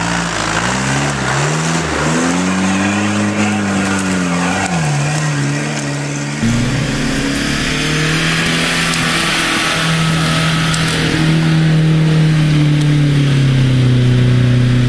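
Off-road 4x4 engines. First a nearby engine revs up and down in several swells. After a sudden change about six and a half seconds in, an Opel Frontera's engine runs under load at a fairly steady pitch as it drives along a muddy track, with a rushing noise over it.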